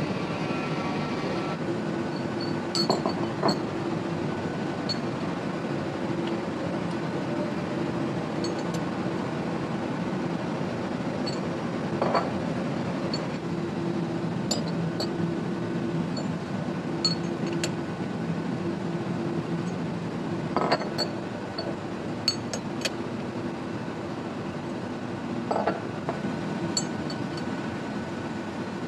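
Steady factory machinery hum with scattered light metallic clinks and a few knocks as steel engine connecting rods are handled, laid on a measuring bench and fitted with a gauge.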